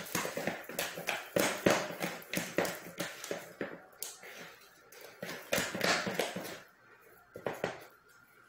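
Hands kneading bread dough in a plastic basin: a quick run of repeated slapping, squishing strokes, thinning out after about six and a half seconds with a couple of last strokes near the end.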